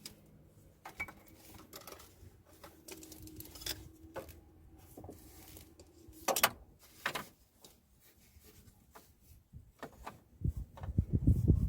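Scattered light clicks and knocks of an aftermarket air intake pipe and its clamp being handled and positioned in the engine bay. There is a sharper click about six seconds in and a louder stretch of low handling noise near the end.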